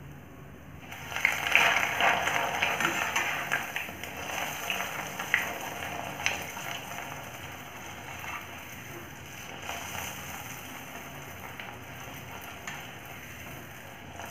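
Bread slice going into oil heated fully on high flame in a kadhai: about a second in, a sudden loud sizzle breaks out, then settles into a steady crackling fry with a few sharp clicks.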